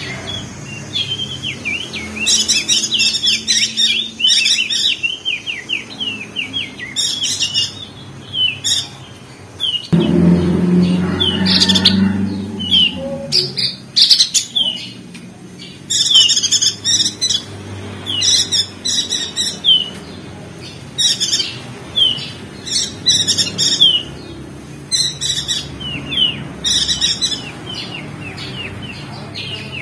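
Crested dark-eye (opior jambul) singing its fast chattering song: bursts of rapid high notes repeated every second or two, with short falling chirps between them. A low rumble runs under it for about three seconds, about ten seconds in.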